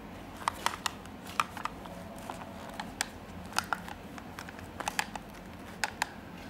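Handling noise from replica Beats Studio over-ear headphones: a scatter of sharp, irregular plastic clicks and taps as the ear cups and headband are turned and pressed, over a steady hiss.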